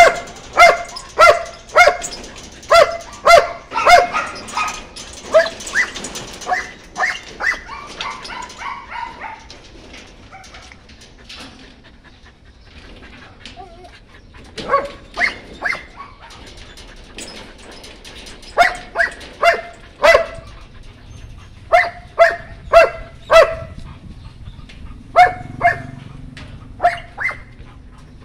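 White German Shepherd puppy barking in quick runs of short, sharp barks, with a lull of a few seconds near the middle.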